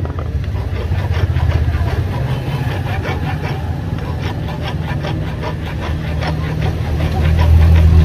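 Hand file rasping across the steel shackle of an antique padlock clamped in a bench vise, in a quick even rhythm of strokes, filing off rust. A steady low engine hum runs underneath and is the loudest sound.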